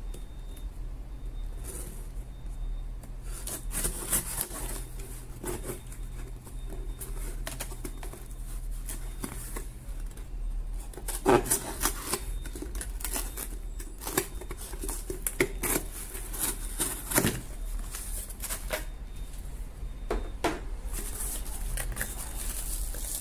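Folding pocket knife slitting packing tape on a cardboard shipping box, then the box flaps pulled open and a plastic-wrapped item inside handled: irregular scratching, scraping and rustling with sharp knocks and clicks, loudest about eleven and seventeen seconds in.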